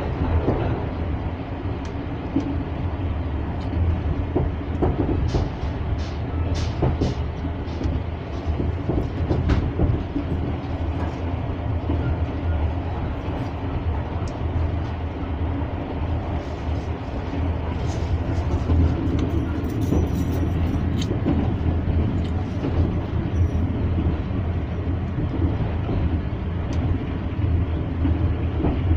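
A passenger train running, heard from aboard: a steady low rumble with scattered irregular clicks and knocks from the wheels on the track.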